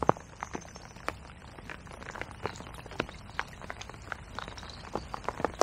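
Rain: irregular sharp taps of drops landing close by, several a second, the loudest just at the start, over a steady hiss of rainfall.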